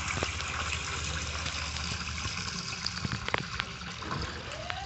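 Soaking water pouring and splashing out of a tilted metal basin of wet straw into a cement trough, a steady splashing hiss: the straw is being drained after soaking, as substrate for milky mushroom. A few sharp clicks come about three seconds in.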